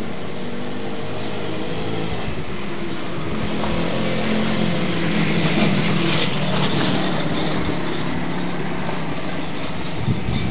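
A car running, with a steady mix of engine and road noise that grows slightly louder in the middle.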